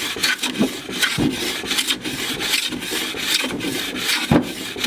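Amtech smoothing plane shaving the edge of a wooden board in repeated push strokes, its blade scraping through the wood, with a few knocks between strokes. The freshly adjusted blade is taking wide, thin shavings.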